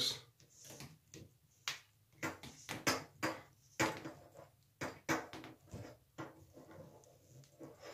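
Irregular light clicks and knocks, about a dozen short ones, from a metal shower hose and its threaded nut being handled and turned onto the shower fitting by hand.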